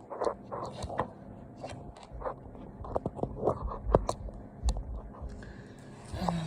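Handling noise from a plastic wet/dry vacuum being opened up: a run of irregular clicks, knocks and scrapes, with two heavier thumps about four and nearly five seconds in.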